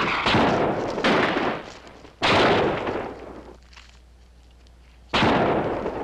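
Gunfire: a string of sharp shots, each trailing off in a long echo, with a short lull before a last shot about five seconds in.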